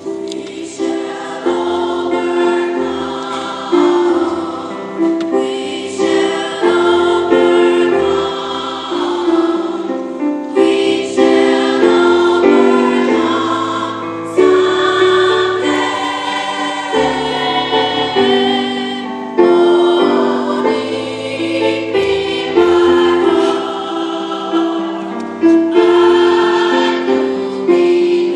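Youth choir singing in parts, over a keyboard accompaniment.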